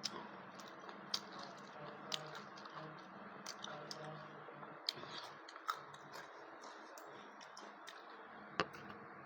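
A person chewing and eating close to the microphone, with irregular wet mouth clicks and smacks; one sharper click near the end is the loudest.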